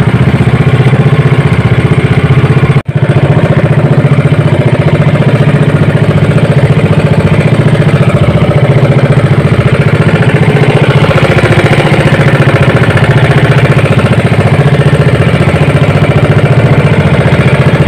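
Small outrigger fishing boat's engine running steadily under way, a loud even drone with a quick firing beat. There is a momentary gap about three seconds in.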